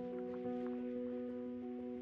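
Background music with long held notes.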